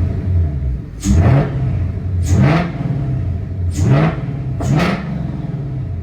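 Whipple-supercharged Mustang GT V8 free-revved four times from idle, each blip rising and falling back, with a high supercharger whine on each one.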